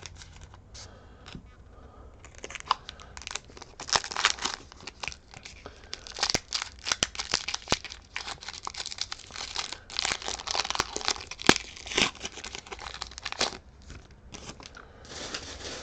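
Foil Pokémon TCG booster pack wrapper being torn open and crinkled, in several bursts of crackling with sharp clicks.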